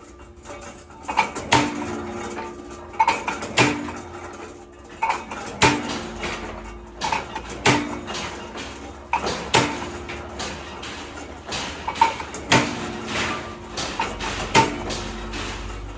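Metal parts being struck and clanked together, sharp knocks coming irregularly about once a second, many leaving a brief metallic ring.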